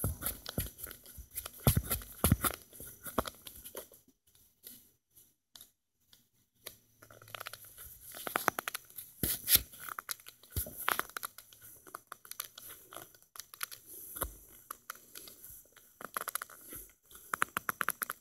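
Screwdriver turning the screw of a worm-drive hose clamp on a garden hose end: runs of small clicks and scrapes mixed with suede work gloves rubbing on the hose, with a short pause about four seconds in.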